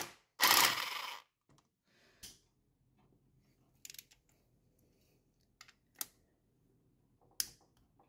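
Hand tools working on a VW VR6 engine's timing-chain end: a loud, roughly one-second metallic rattle near the start, then a few short, separate clicks and clinks.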